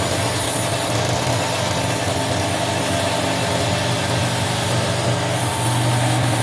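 Wood lathe running steadily: a motor hum under an even hiss, the hum growing a little stronger near the end.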